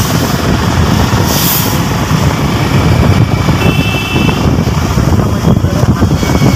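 Steady, loud rumble of road and wind noise from a vehicle moving along a city street, with a short high-pitched horn-like tone about halfway through.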